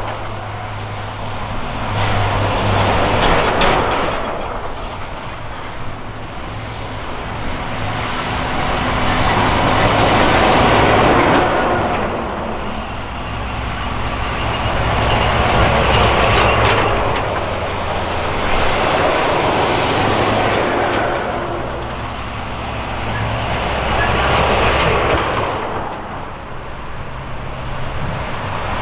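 Convoy of military trucks driving past one after another, their diesel engines and tyres swelling and fading as each vehicle passes, about five times.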